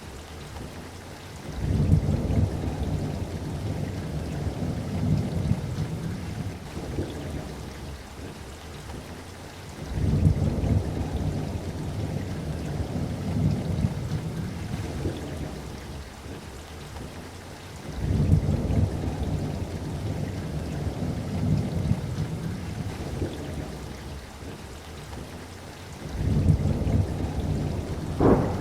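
Thunderstorm: rolling thunder, four deep rumbles about eight seconds apart, each breaking suddenly and dying away over several seconds, over steady rain.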